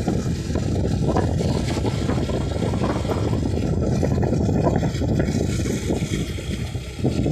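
Wind buffeting the microphone of a vehicle moving along a road, with the vehicle's running noise underneath; it eases briefly near the end.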